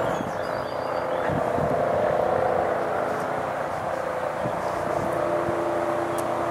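Approaching MBB/Kawasaki BK 117 twin-engine rescue helicopter, not yet close: a steady drone of turbines and rotor with several held humming tones.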